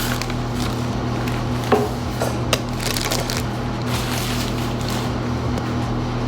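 A tripod being unpacked: packaging rustles and crinkles, with a couple of sharp clicks about two seconds in, over a steady low hum.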